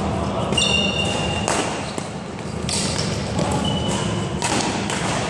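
Badminton rally: sharp racket strikes on the shuttlecock, three of them about a second and a half apart, with short high squeaks of shoes on the hall floor, all echoing in a large sports hall.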